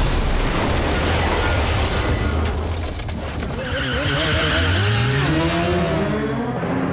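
Film sound effects: a car tumbling and scraping across pavement for the first few seconds, then a sport motorcycle's engine revving up, its pitch climbing steadily toward the end.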